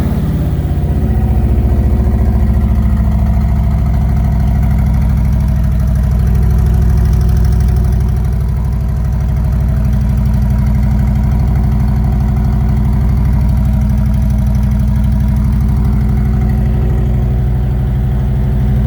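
Harley-Davidson Milwaukee-Eight V-twin idling loudly and steadily just after a cold start, unrevved, through Cobra slip-on mufflers with bare baffles and no steel-wool packing; loud and obnoxious, like a truck with bad exhaust.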